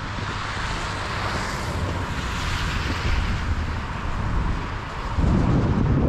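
Wind rushing through a pine forest and buffeting the microphone, with a low rumble that jumps louder about five seconds in.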